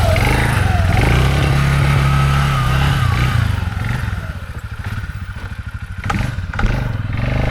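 Four-wheeler (ATV) engine running, easing off to a pulsing idle about four seconds in, then picking back up. A couple of knocks sound around six seconds in.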